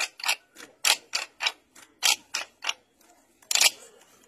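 A group of children doing a drill routine, striking in unison: a rhythmic run of sharp clacks, about two or three a second, with a short pause near three seconds in.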